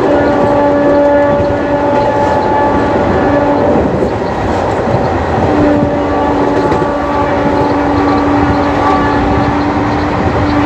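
WAP4 electric locomotive horn sounding a steady single note in blasts: one of about two seconds at the start, a short toot a little later, and a long blast beginning about halfway through. Underneath, the continuous rumble and clatter of ICF passenger coaches running on the track at speed.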